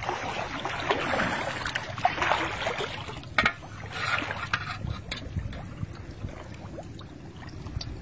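Shallow water sloshing and trickling around people wading waist-deep, with one sharp click a little over three seconds in.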